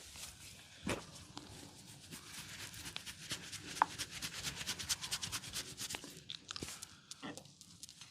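Hands rubbing and scratching briskly through hair and scalp in a head massage: a quick run of rasping strokes, several a second, strongest in the middle. A soft thump comes about a second in, and a single sharp click near four seconds.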